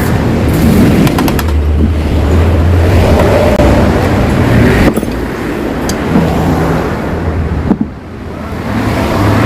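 Angle grinder cutting into the steel shell of a Yamaha RX-King exhaust muffler, running loud and continuously. It eases off briefly near the end and then bites back in.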